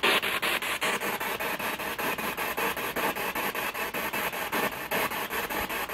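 Spirit box sweeping through radio frequencies: a steady hiss of static, chopped about seven or eight times a second.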